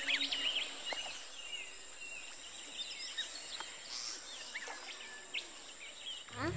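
Faint outdoor ambience with small birds chirping: many short, scattered whistled chirps over a steady high hiss. A louder low rumble sets in just at the end.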